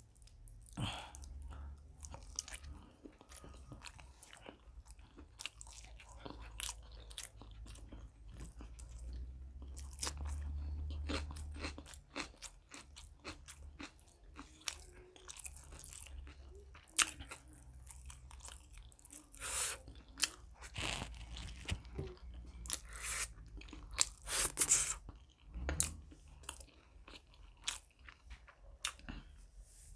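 A person chewing and biting spiced chicken liver and gizzard with paratha: wet mouth clicks and smacks mixed with crunchy bites. Several louder smacks come in the second half.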